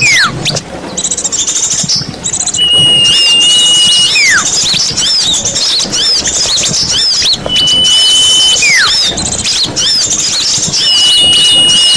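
Bird-lure recording of small birds calling: a long, steady high whistle that drops away at its end, repeated about every four to five seconds, over dense, fast, high twittering.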